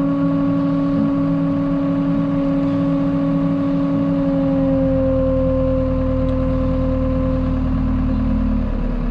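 Farm tractor engine running steadily while its hydraulics tip the trailer to unload it. The note drops near the end.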